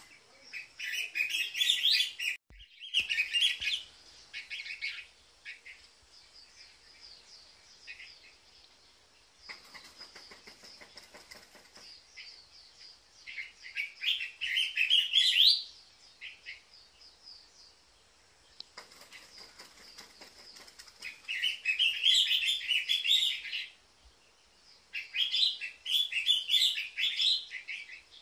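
Collared finchbill calling: about four loud bursts of rapid notes, each run climbing in pitch, spaced several seconds apart. A faint steady high-pitched buzz runs underneath.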